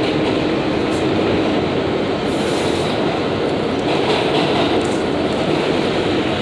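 Ride inside an R142A subway car running between stations: steady rumble and rattle of wheels on the track. A low steady hum fades out about a second in.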